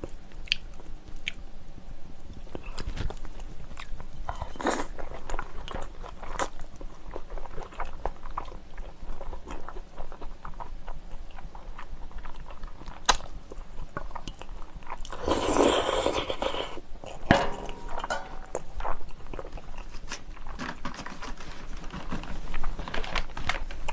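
Close-miked mouth sounds of eating spicy cold noodles: chewing and wet smacking with scattered small clicks, and one longer, louder slurp of noodles about fifteen seconds in.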